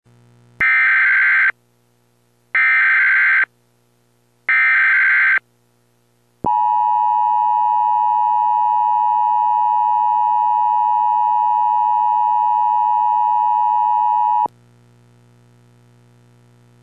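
Emergency Alert System tornado warning opening: three short, buzzy SAME header data bursts, each about a second long and a second apart, carrying the coded warning. Then comes the steady EAS attention tone, which lasts about eight seconds and cuts off suddenly, leaving a faint low hum.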